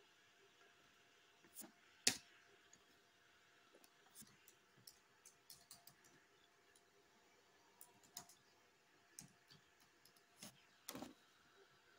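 Scattered clicks of a computer mouse and keyboard while a piece's name is typed in, the sharpest single click about two seconds in and quick runs of key taps in the middle and near the end.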